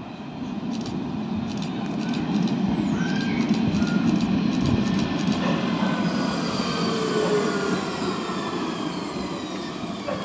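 Alstom Citadis X05 tram approaching and passing close by on street track: a rumble of wheels on rail that swells over the first few seconds. As the tram goes by, a high whine from its electric drive rises above the rumble.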